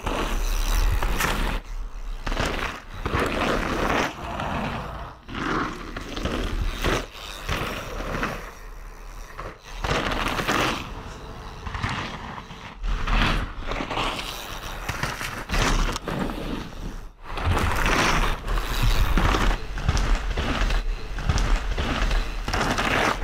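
Mountain bike tyres rolling and skidding over loose dry dirt, loudest in swells each time the rider passes close by.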